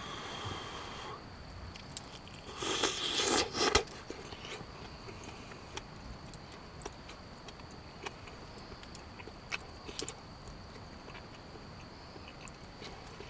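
Wood campfire crackling in sparse, scattered pops, with a louder noisy rustle of about a second near the start.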